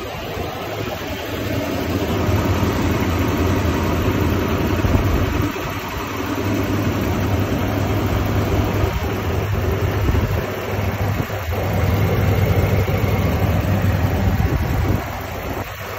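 Ram pickup truck engine idling steadily, heard up close from the open engine bay.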